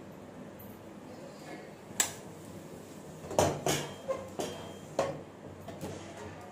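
A cloth wiping the inside of a metal kadai, with a sharp clink about two seconds in and a string of short metallic knocks and clinks of cookware in the second half.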